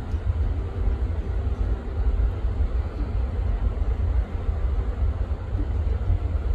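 Wind buffeting the microphone outdoors: a loud, low, fluttering rumble with little else above it.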